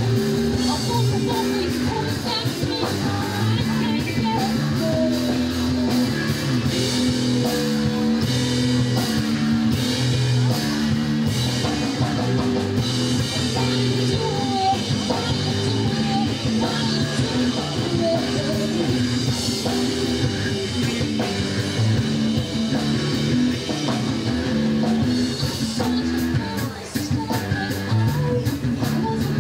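Live rock band playing: a woman sings lead over electric guitar and a drum kit.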